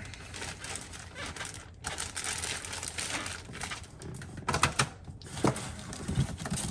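Thin plastic bag rustling and crinkling as a graded comic slab is slid back into it, with a few sharp clicks a little past the middle.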